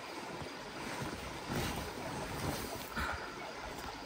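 Creek water running steadily, with wind gusting against the microphone in irregular low rumbles.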